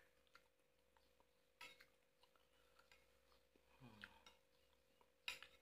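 Mostly near silence, broken by a few sharp clinks of a metal fork against a ceramic bowl as noodles are stirred and lifted, the loudest near the end. A brief low mouth sound about four seconds in.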